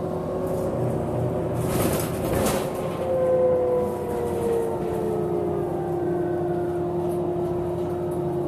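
2007 New Flyer DE40LF hybrid bus running, its Cummins ISL diesel and Allison EP40 hybrid drive giving a steady drone with several whining tones, some gliding down in pitch. A brief burst of hiss about two seconds in.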